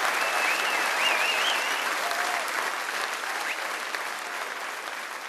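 Audience applauding, dying away gradually, with a brief high wavering call over it in the first two seconds.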